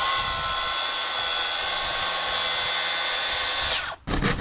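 Makita 36V cordless plunge track saw running at full speed with a steady high whine, then switched off about four seconds in, its whine falling as the blade spins down.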